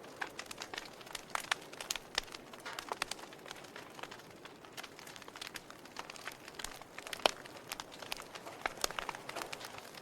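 Logs burning in a fireplace, crackling with irregular sharp pops over a soft hiss; one louder pop comes about seven seconds in.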